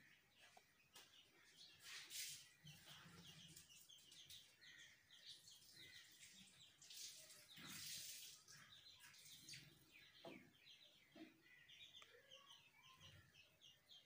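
Faint chirping of birds: many short, high chirps overlapping and thickening through the second half, with a brief rush of noise about halfway through.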